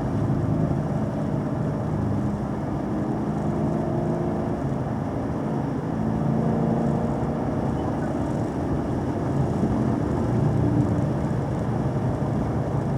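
Car engine running at a moderate cruise with tyre and road noise, its note rising and falling gently in pitch as the road winds.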